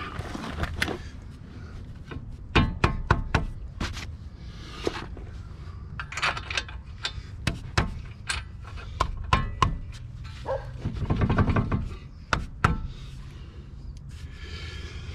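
Irregular clicks, clanks and knocks of hand tools and metal suspension parts being handled, in scattered clusters.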